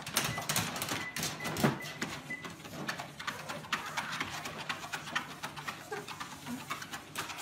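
A bulldog puppy's paws and claws tapping on a moving treadmill belt as it walks, in quick, irregular clicks.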